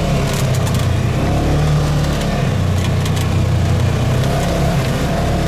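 Vehicle engine running steadily as it is driven slowly along a muddy dirt trail, heard from inside the cab, with a few brief knocks.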